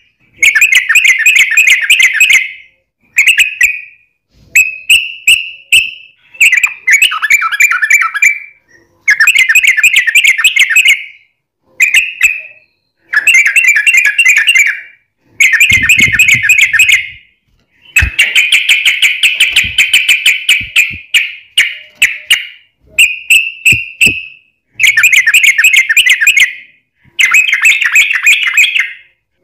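Yellow-vented bulbul (trucukan) in full, vigorous song: about a dozen loud, bubbling, chattering phrases of one to two and a half seconds each, with short pauses between them.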